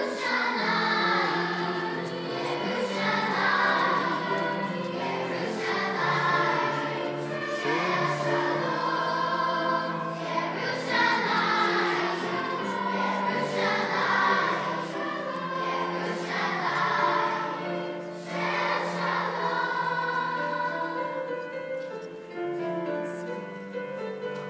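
A school choir singing a song in phrases with brief breaks between them, over a steady sustained accompaniment.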